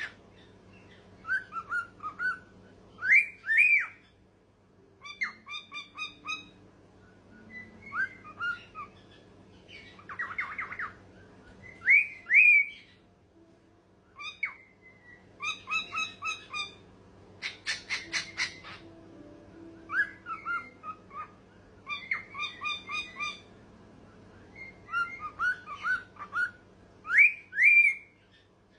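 Cockatiel whistling and chirping in short phrases of rising whistled notes, one phrase every second or two. A couple of harsher, raspy calls come about a third and about two thirds of the way in.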